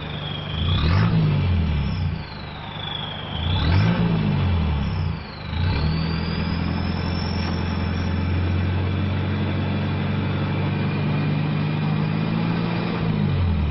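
Toyota Hilux Vigo engine revved in two short blips and then held at high revs for several seconds before dropping back, with a loud turbo whistle that climbs and falls with the revs. The stock turbo has been worked on to give this sweet-sounding whistle.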